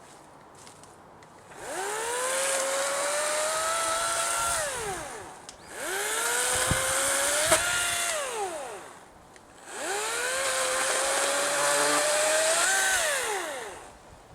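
Battery-powered electric chainsaw triggered three times, each time whining up to speed, running for a few seconds and winding down when released.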